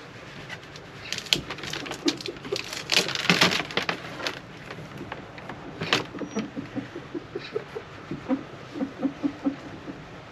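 Scattered clicks and knocks of hands-on work, with a brief scraping rush about three seconds in and a quick run of light taps near the end.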